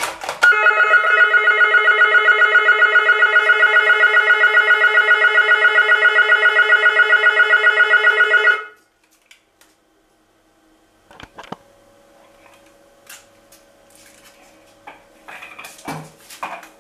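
A wall-mounted apartment door-entry intercom handset ringing with a loud, warbling electronic tone, a call from the street-door panel. It rings for about eight seconds and then cuts off suddenly, followed by a few light clicks and knocks as the handset is handled.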